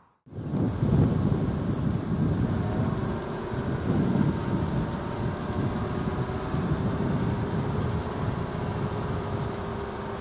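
Steady low rumble of a vehicle running close by, starting abruptly just after the start.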